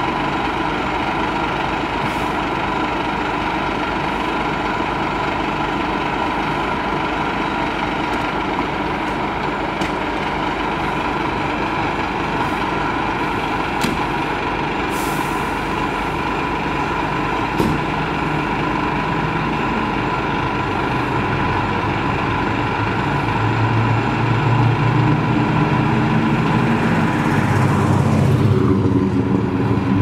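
Diesel engines of Scania fire trucks idling steadily at the kerb, with a short hiss of air about halfway through. Near the end the engine note grows louder and deeper, as a truck's engine works up.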